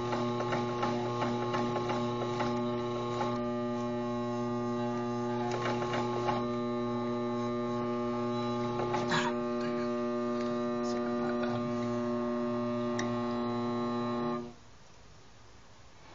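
Electric motor of a cue-wrapping machine turning a pool cue while Irish linen thread winds onto the butt: a steady hum with a few faint clicks. The motor switches off abruptly about fourteen seconds in.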